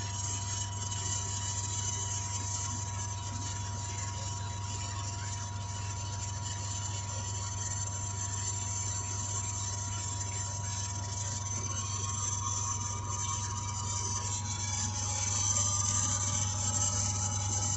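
Old sump pump's electric motor running steadily, a low hum under a rough whirring noise, growing slightly louder near the end.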